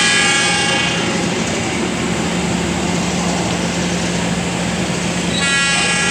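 Passenger train's locomotive horn sounding twice: a long blast that stops about a second in and another that starts near the end, over the steady hum and rumble of the running train.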